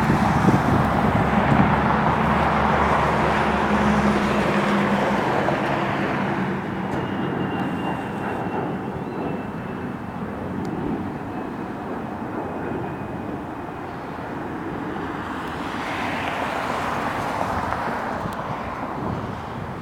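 Jet airliner's engines passing overhead: a loud rushing roar with a low steady tone that fades over several seconds, a faint slowly falling whine through the middle, and the noise swelling a little again near the end.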